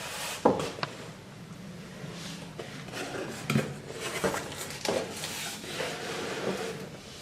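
Handling noises from unpacking a boxed award plaque: scattered knocks and scraping or rustling of the box and packaging, with the sharpest knock about half a second in.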